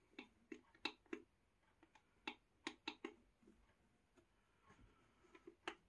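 Faint, scattered clicks and taps of hands handling a plastic Black & Decker battery charger, coming in a few quick clusters.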